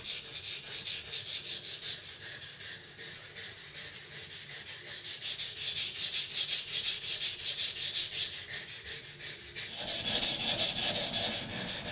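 Buck knife blade stroked back and forth on a wet 220-grit green carbide waterstone: a quick, even, rhythmic rasping scrape, louder from about ten seconds in.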